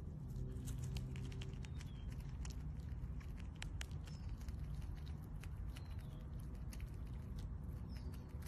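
A squirrel gnawing at a nut in its shell: scattered small, crisp clicks and scrapes at an uneven pace over a faint low hum.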